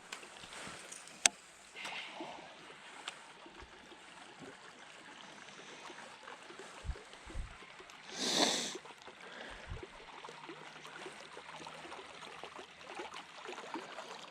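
Quiet river ambience around a small drifting boat, with faint water noise, a sharp click about a second in, a few soft low knocks, and a short rushing splash-like burst about eight seconds in.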